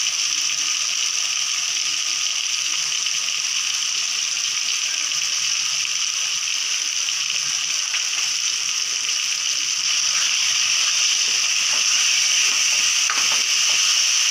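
Onion, tomato and green chilli masala sizzling steadily in hot oil in a metal kadai, a little louder near the end as a spoon stirs it.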